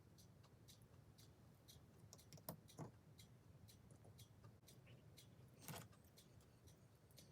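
Faint clicking and rattling of small plastic LEGO pieces being handled and pressed together, with a few slightly louder clicks.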